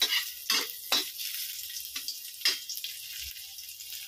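Garlic cloves sizzling in hot oil in a metal wok, with a metal spatula scraping and knocking against the pan about five times.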